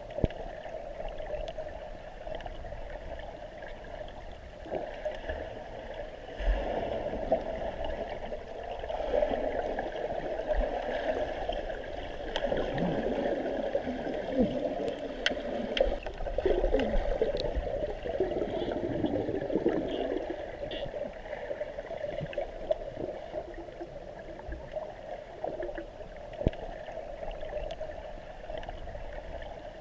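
Water gurgling and bubbling, louder and more churning through the middle stretch.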